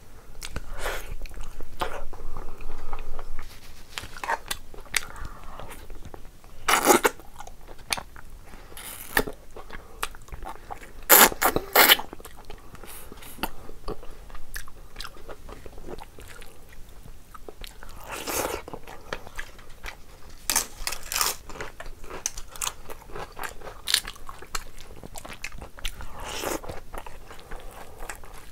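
Close-up eating sounds: a person biting and chewing mutton curry with rice, with wet chewing and irregular crunchy bites. The loudest bites come about a quarter of the way in and in a quick cluster near the middle.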